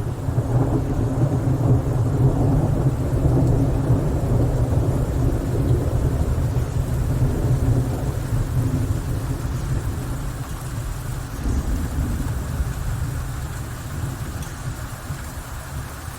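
A long roll of thunder over steady rain: a deep rumble that swells about a second in, holds for several seconds and slowly dies away, with the rain's hiss underneath.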